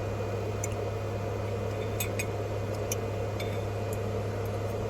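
Steady hum inside a small camper van from a charger's cooling fan and a running air conditioner's compressor, with a few light clinks about two to three seconds in as canned fruit is eaten.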